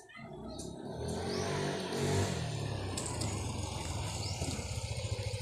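Motor scooter engine approaching and growing louder, its pitch falling over the first couple of seconds, then running steady as the scooter rides past.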